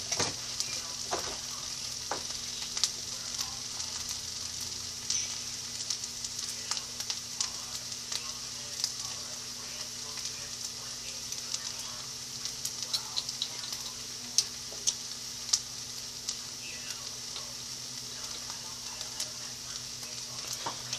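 Food sizzling in a frying pan on the stove, a steady hiss dotted with small pops and crackles. Under it runs the steady low hum of a range hood extractor fan.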